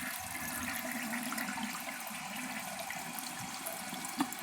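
Toilet flushing: a steady rush of water through the tank and bowl, with a light knock near the end.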